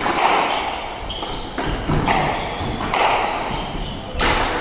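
Squash ball struck by rackets and smacking off the court walls in a rally: sharp hits about once a second, each with a short echo.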